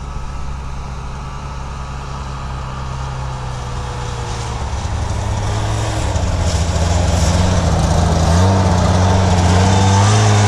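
Ski-Doo snowmobile engines: one idling steadily while a second snowmobile pulls up close, the sound growing louder through the middle. In the last couple of seconds an engine's pitch rises and falls repeatedly as it is revved.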